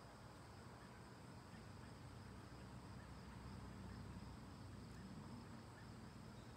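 Near silence: faint outdoor ambience with a steady, high-pitched insect drone, typical of crickets.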